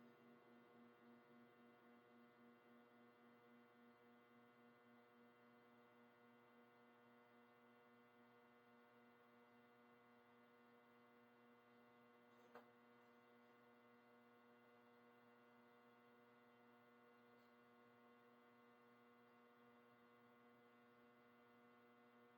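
Near silence with a faint steady hum. The last of a drum-kit hit rings out, pulsing and fading away over the first few seconds, and there is one faint click about twelve seconds in.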